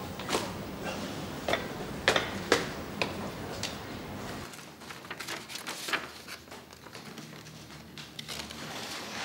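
Hard footsteps on pavement, about six sharp steps at uneven spacing, the loudest about two seconds in. They stop near the middle and give way to quiet room tone with a few faint small clicks.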